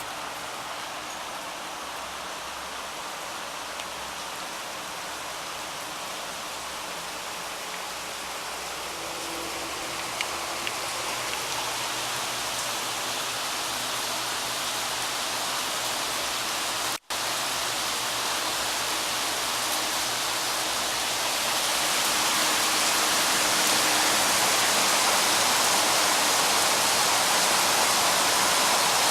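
Rain falling steadily, getting heavier and louder in the last third. The sound cuts out for an instant about halfway through.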